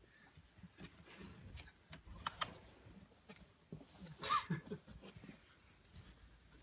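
Light clicks and scrapes on a cardboard box as it is handled with a cat inside, with two sharp clicks a little over two seconds in. A short cat call comes about four seconds in.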